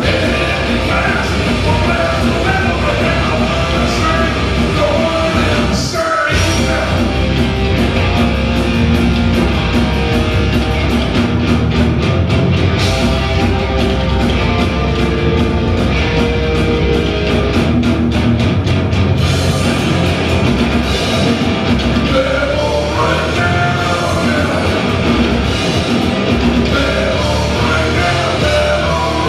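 Loud live rock band: two distorted electric guitars, bass and a drum kit, with a male lead vocal singing in places, recorded from the audience. The band drops out for an instant about six seconds in before crashing back in.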